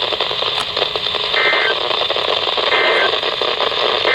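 Emergency Alert System end-of-message data bursts on NOAA Weather Radio: three short two-tone digital squawks about 1.3 s apart, the last right at the end, over steady radio static hiss. They signal the end of a Special Marine Warning.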